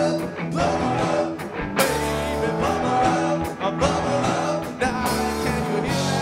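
Live rock band playing a song: electric guitars, bass guitar and keyboards over a steady drum beat.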